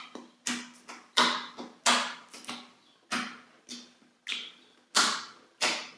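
Slime being pressed and poked, giving irregular crisp pops and clicks, about two a second, each fading quickly.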